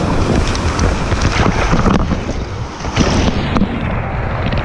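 Water splashing around an inflatable raft as paddles dig in, with wind noise on the microphone.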